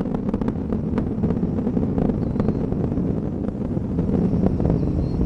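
Space Shuttle Discovery's solid rocket boosters and main engines in ascent: a loud, steady, deep rumbling roar with crackling that is densest in the first second. The main engines are throttled down while the shuttle passes through maximum dynamic pressure.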